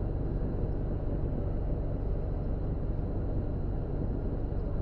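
Steady low mechanical hum with an even background rush, unchanging throughout and with no distinct clicks from the lock parts.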